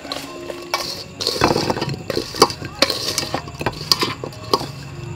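Metal spoon stirring and scraping in a stainless steel bowl, clinking against the sides as governor plums are tossed with chili salt. Sharp clinks come one after another, with a denser rattling, scraping stretch about a second and a half in.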